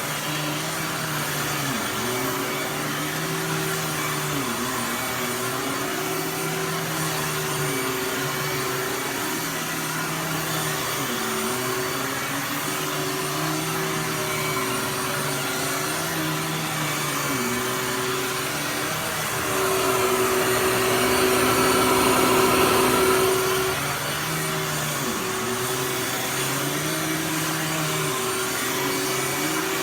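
Dirt Devil Ultra Vision Turbo upright vacuum cleaner running while vacuuming. Its motor pitch sags and recovers every three to four seconds. About twenty seconds in it turns louder and higher for roughly four seconds, then settles back.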